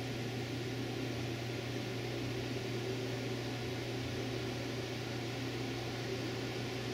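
Room tone: a steady low hum under an even hiss.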